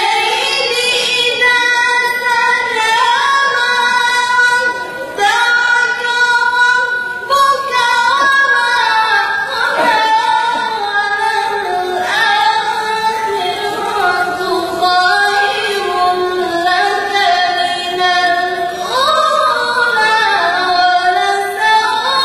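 A woman reciting the Quran in the melodic chanted style (tajweed), her voice in long ornamented phrases that rise and fall in pitch, with short pauses for breath.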